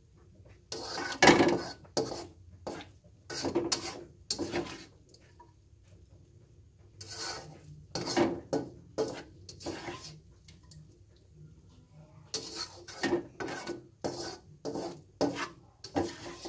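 Spatula scraping across a wok in repeated short strokes, in four bursts with short pauses between, as the last of the stir-fried pak choi and egg is scooped out of the pan.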